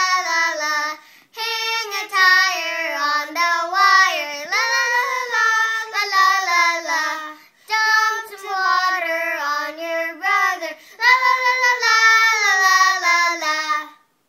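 Two children, a boy and a girl, singing a Christmas carol together without accompaniment, in phrases of held notes with two short breaths between them; the singing stops just before the end.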